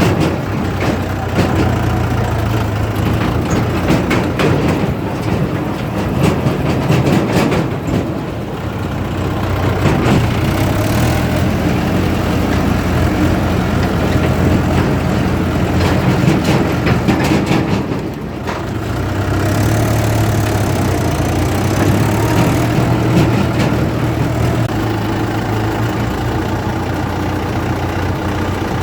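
JCB 3DX backhoe loader's diesel engine running loudly and steadily as it works, easing off briefly twice.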